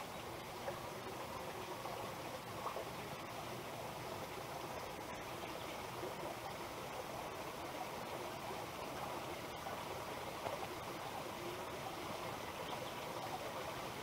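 Small stream flowing steadily: an even, unbroken rush of running water.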